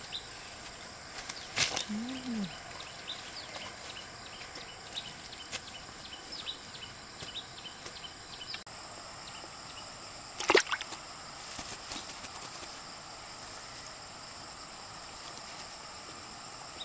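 A steady high insect buzz with small repeated chirps, broken by a few sudden sharp sounds, the loudest about ten seconds in.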